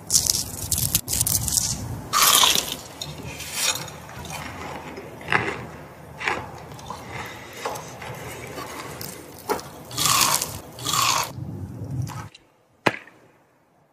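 Crunching bites into crispy coconut-crusted fried chicken: a series of loud, crisp crunches over a low steady background that cuts off near the end.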